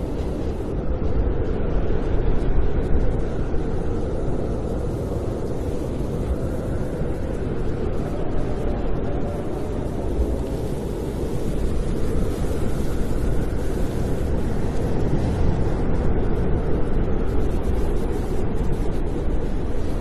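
Snowstorm wind: a steady low rumble with gusts that swell and fade every few seconds, and a faint whistle rising and falling above it.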